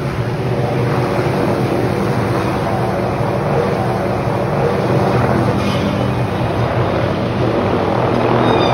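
Helicopter carrying an aerial tree-trimming saw on a long boom, flying low overhead with a steady rotor and engine drone.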